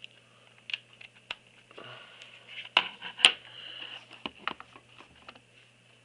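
Plastic clicks and knocks from handling a mini USB keyboard and pulling at its retractable USB cable, with two sharp clicks about half a second apart near the middle.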